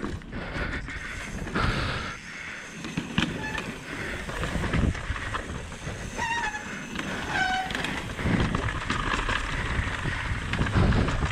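Mountain bike rolling down a rock-slab and dirt trail: tyres rumbling over the rock, with the bike rattling and knocking over the bumps. Two short squeals come about six and seven seconds in.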